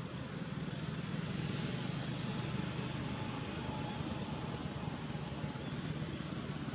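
Steady low background rumble with a noisy hiss above it, even throughout with no distinct calls or knocks.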